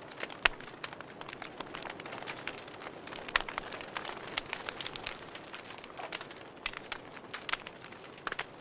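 Wood campfire crackling, with irregular sharp pops and snaps over a soft, steady hiss of burning; two pops stand out, about half a second in and a little past three seconds.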